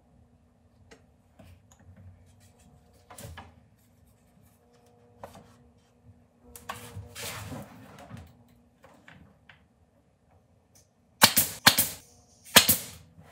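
Nailer firing four sharp shots in two quick pairs near the end, fastening a freshly glued wooden frame. Before that come quiet clicks and a brief scraping as the wood pieces are handled and set in place.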